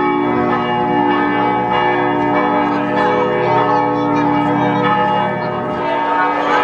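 Church bells ringing continuously, many overlapping bell notes sounding together and hanging on.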